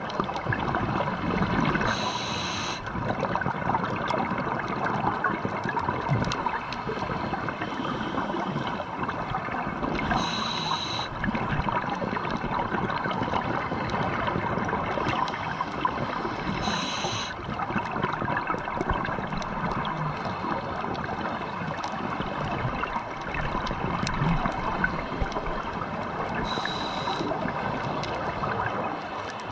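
Underwater ambient noise heard through a camera housing: a steady hiss with fine crackling, broken four times by about a second of scuba regulator breathing from the diver holding the camera.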